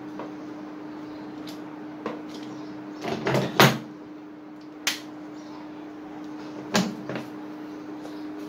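Plastic quick-release bar clamps being loosened and taken off a wooden axe handle, with tools set down on a metal workbench. The result is a cluster of clunks and clicks about three to four seconds in, then single knocks near five and seven seconds, over a steady hum.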